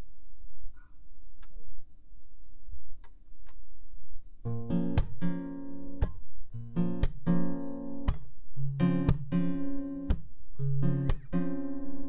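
Solo steel-string acoustic guitar strumming chords, with roughly one accented stroke a second. It starts about four seconds in, after a low steady hum and a couple of faint clicks.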